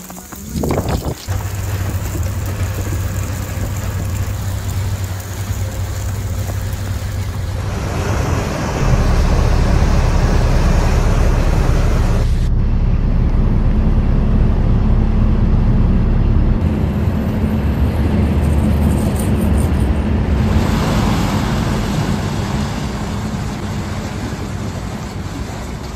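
Outdoor ambience of vehicles and road traffic in a snowstorm: a steady low rumble with noise over it. It changes abruptly several times where separate clips are cut together.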